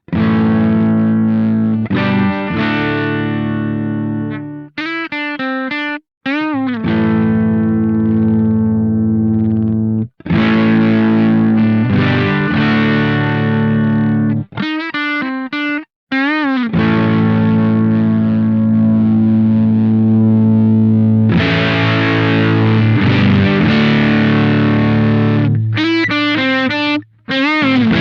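Electric guitar played through a Velouria FX Witchcraft distortion/preamp pedal: heavily distorted chords left ringing, broken three times by short phrases of bent notes wavering up and down in pitch.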